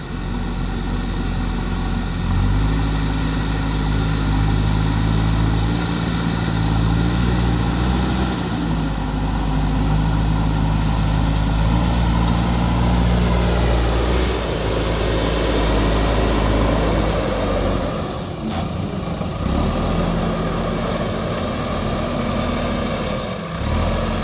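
JCB backhoe loader's diesel engine running, its pitch stepping up and down several times as the load and revs change, with brief dips about two-thirds of the way through and near the end.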